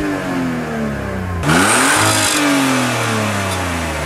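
Car engine being revved in park: the pitch falls away, is blipped sharply up again about a second and a half in, then winds slowly back down.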